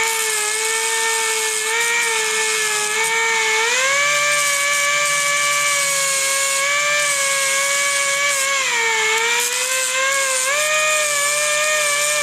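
3-inch cutoff tool running at high speed, its cutting wheel grinding the edges off a bolt head to round it: a steady high whine over a grinding hiss. The pitch steps up about four seconds in, sags briefly around nine seconds, then rises again.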